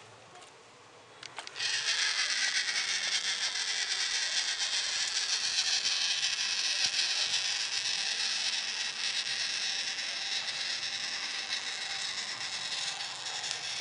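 Small electric motor and gears of a toy solar car whirring steadily, a high, hiss-like whir that starts abruptly about a second and a half in.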